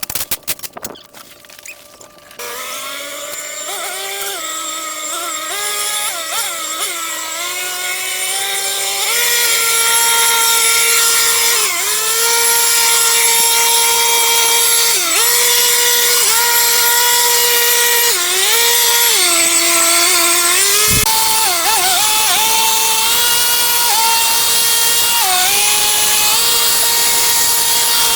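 A small power tool's motor running, its pitch rising and dropping back again and again as the throttle is opened and eased off. It starts about two seconds in and grows louder, then holds at full level.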